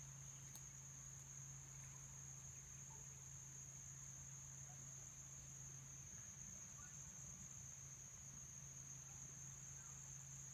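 Faint, steady insect chorus, a continuous high-pitched trill of crickets, over a low steady hum.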